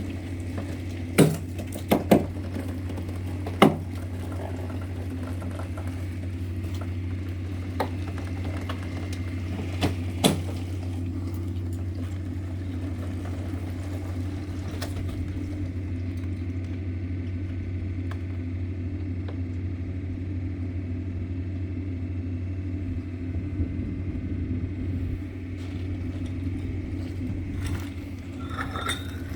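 Hydraulic rock splitter's power unit running with a steady low hum, with a handful of sharp cracks and clicks in the first ten seconds as the weathered granite splits open along the drilled holes.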